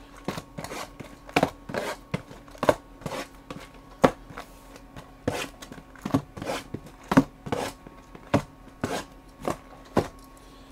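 Cardboard trading-card hobby boxes being picked up, slid and set down on a table: a string of short, irregular knocks and scrapes, about two a second.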